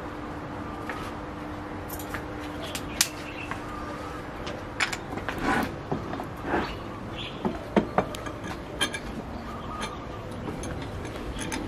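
Scattered knocks and clicks of wood and metal as a guitar body and its clamps are handled on a wooden workbench, busiest through the middle. Birds chirp faintly in the background.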